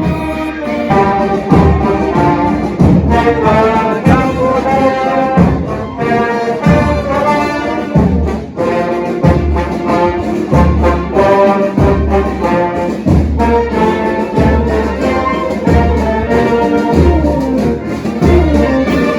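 Brass-led orchestra playing a tune over a steady low drum beat.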